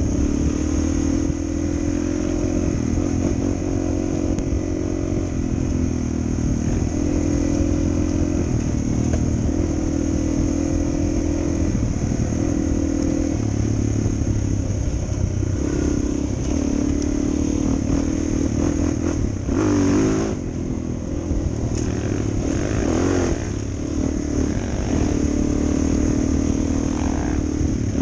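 Suzuki DR-Z400's single-cylinder four-stroke engine running under way on a dual-sport motorcycle. Its pitch steps up and down every few seconds with throttle and gear changes, and there is a brief noisy flare of wind or clatter about two-thirds of the way in.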